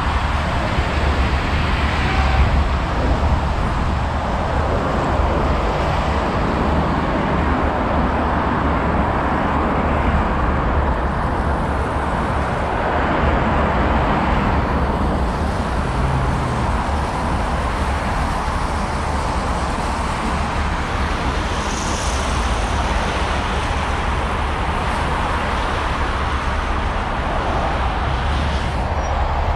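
Steady road traffic noise: a continuous hum of cars and other vehicles passing on a busy city avenue.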